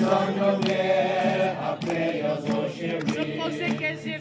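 A group of voices singing a hymn together, chant-like, in sustained overlapping notes.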